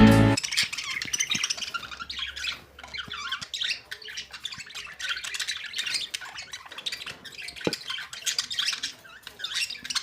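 Budgerigars chattering: a rapid, irregular stream of short high chirps and squawks.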